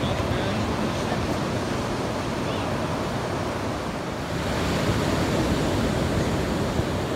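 Ocean surf breaking and washing up a sandy beach, a steady rushing noise that swells slightly about five seconds in.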